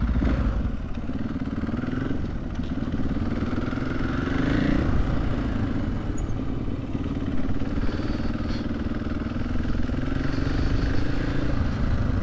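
Husqvarna FE 501 supermoto's single-cylinder four-stroke engine running under way. The engine note holds steady, rises briefly about four seconds in, then falls back.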